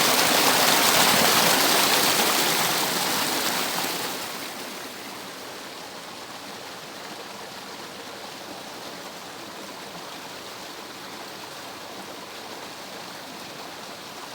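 Water rushing over a cascade in a stream, a steady, even rush. About four seconds in it drops to a noticeably quieter, softer flow that holds steady.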